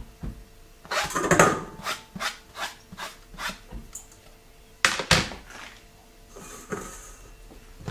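A plastic cutting board scraped and tapped against a stainless steel mixing bowl as chopped chili is pushed off it into the bowl: a scrape, then a string of light clicking taps. Two sharp knocks follow about five seconds in.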